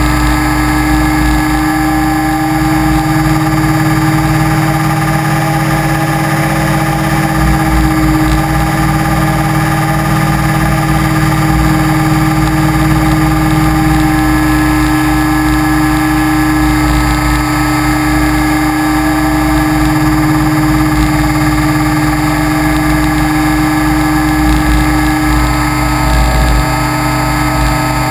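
Motor and propeller of an FPV model aircraft running steadily in flight: a constant, loud, even-pitched hum with a rumble of wind and vibration under it.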